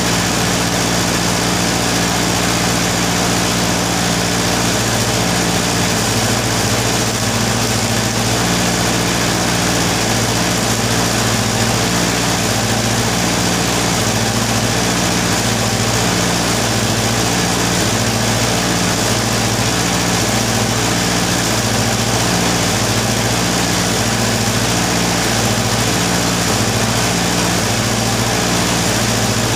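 Arc welding setup running steadily while a tractor track roller is stick welded: a continuous machine hum under a constant hiss.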